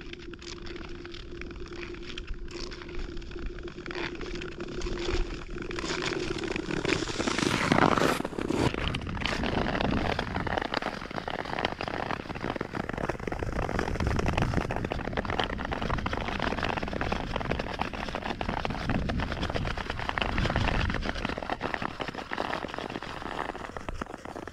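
Nordic ice skates gliding and scraping over natural lake ice, with dense crackling from the ice. Quieter at first, it grows much louder about a third of the way in and stays loud.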